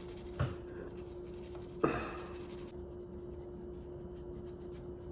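Steel tool scratching at carbon buildup in the striker channel and extractor area of a Taurus G3C pistol slide, with two sharp knocks about half a second and about two seconds in, the second louder. A steady hum runs underneath.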